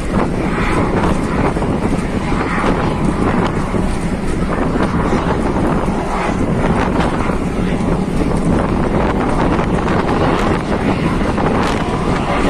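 Wind buffeting the phone's microphone over the steady rumble of a moving road vehicle, a loud, even noise with no breaks.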